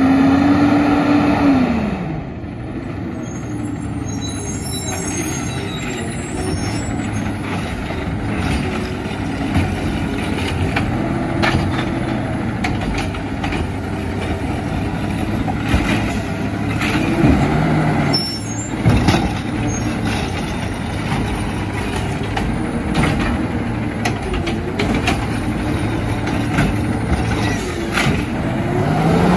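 Automated side-loader garbage truck at work. The engine revs with a rising whine that drops away about two seconds in, then runs lower under scattered clunks and knocks, and revs up again at the end.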